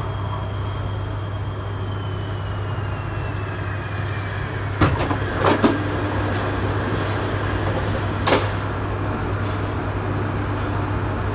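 Metro train's electric motor whine sliding down in pitch as it slows, over a steady low rumble. A cluster of sharp clunks and rattles comes about five seconds in, and a single clunk near eight seconds.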